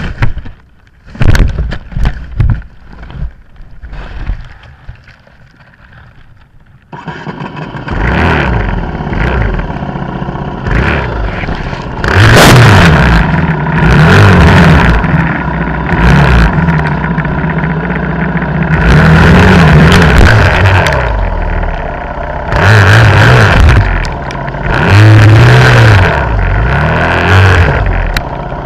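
Dirt bike engine: a few sharp knocks and clatter, then the engine starts about seven seconds in and runs, revving hard again and again in bursts of a second or two.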